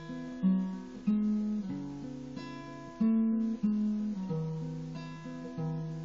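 Acoustic guitar strummed in a slow chord progression, a new chord struck every second or so and left to ring.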